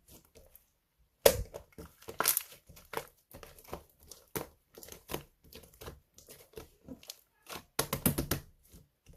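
Clear glitter slime being squeezed and pressed by hand, giving an uneven run of short wet pops and crackles, with a dense cluster of pops near the end.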